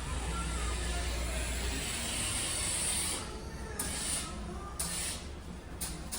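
Wind and sea rushing on the open deck of a cruise ship under way: a steady hiss with a low rumble underneath, with a few short, sharper gusts in the second half.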